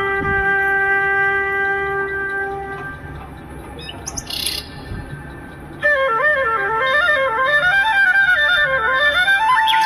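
Instrumental background music led by a flute: a long held note fades out, a brief high chirp sounds in the quieter gap, then about six seconds in a flute melody starts with quick wavering turns in pitch.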